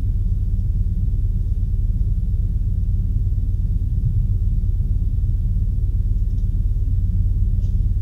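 Steady low hum and rumble with no change in level, and a few faint short rustles near the end.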